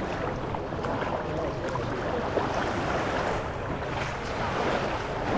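Seaside ambience: waves on the shore and wind on the microphone, with faint distant voices.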